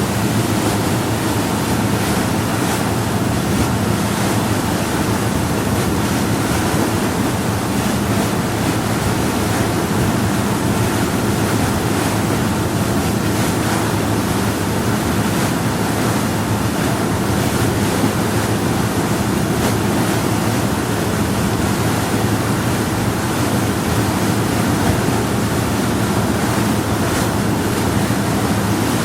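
Power yacht under way at a steady speed on calm water: a constant engine drone with water rushing along the hull. The sound is even throughout, without swells or bumps.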